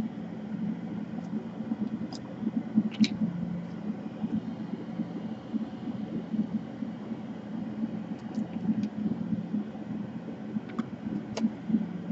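Steady low rumbling background noise with a handful of short, sharp clicks scattered through it.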